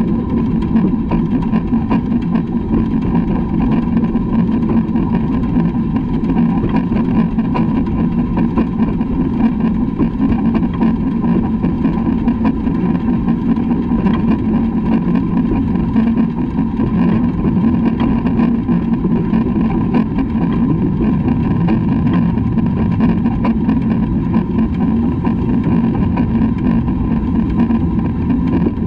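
Steady rumbling running noise of LMS Black 5 steam locomotive No. 45407 under way, heard from a microphone on its front buffer beam, with a constant ringing tone above the rumble.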